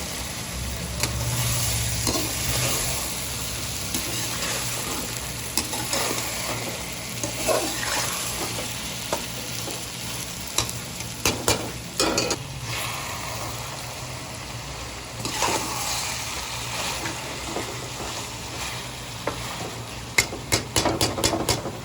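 Karela chicken sizzling as it fries in a pan, stirred with a spatula that scrapes and clicks against the pan now and then. There is a quick run of sharp clicks near the end.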